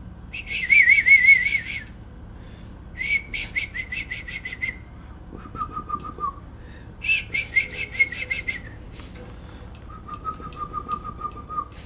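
Cockatiel chirping and whistling: three loud warbling calls, with two quieter, lower trilling calls between and after them.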